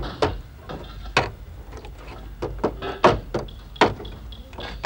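Irregular sharp metallic knocks and clanks, several a second, of hand tools working on the underside of a car.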